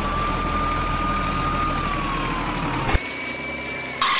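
Heavy truck engine sound running steadily, a low hum with a thin high whine over it, laid over footage of an unpowered toy crane truck. About three seconds in it cuts off abruptly to a quieter engine sound with a higher whine, and a short loud burst of noise comes near the end.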